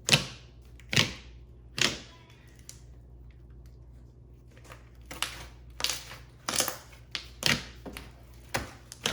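Clicky slime being squeezed and folded by hand, giving sharp, wet clicks and pops: a few about a second apart at first, then after a pause a quicker run of clicks.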